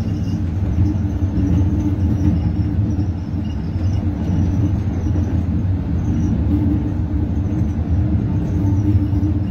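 Passenger train coach running along the track, heard from inside the carriage: a steady low rumble of the wheels and running gear.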